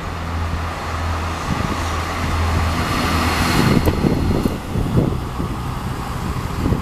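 Renfe regional diesel train pulling out of a station and rolling past close by: a steady low engine hum under the rumble of wheels on rails, which swells to its loudest about three to four seconds in, with a couple of sharp clicks as the wheels cross rail joints.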